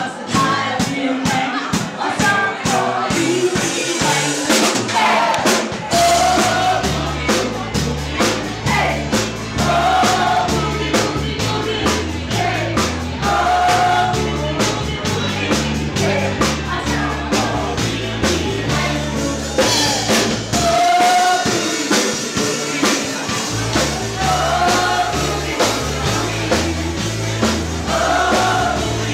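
Live band playing boogie-woogie: a stepping bass line and drums under sung phrases, with dancers singing along. The bass drops out for a couple of seconds about two-thirds of the way through, then comes back.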